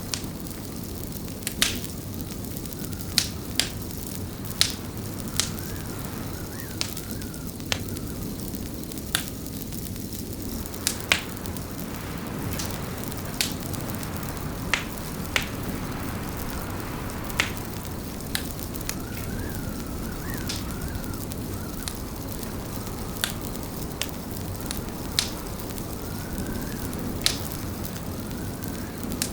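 Wood fire crackling in a fireplace: sharp pops every second or two over a steady low rumble, with a faint wavering whistle now and then.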